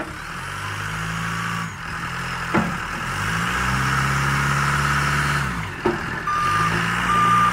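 Telescopic wheel loader engine revving up and dropping back three times as the boom and bucket are worked, with a couple of short knocks. Near the end the loader's reversing alarm starts beeping, a little over one beep a second.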